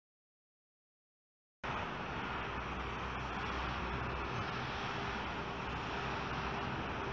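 Dead silence for about a second and a half, then steady outdoor background noise: an even rushing sound with a low rumble underneath that keeps on unchanged.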